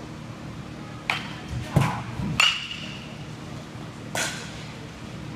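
Batting-cage sounds: a few sharp knocks from the pitching machine and the ball. The loudest is a bat meeting the ball with a ringing ping about two and a half seconds in, over a low steady hum.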